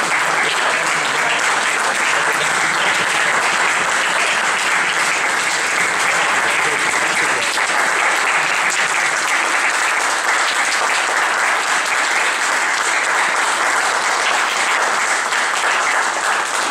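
Audience applauding steadily, beginning to die away at the very end.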